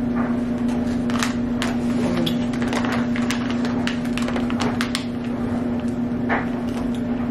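Foil candy pouches and bubble-wrap packing crinkling and crackling as they are unwrapped and handled, in many short irregular crackles, over a steady low hum.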